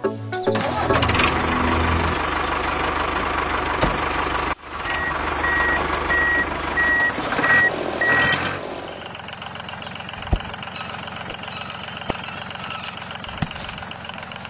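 Vehicle engine rumble, then a reversing alarm beeping about six times, evenly spaced at one steady high pitch. After that the engine sound drops to a quieter steady hum with a few light clicks.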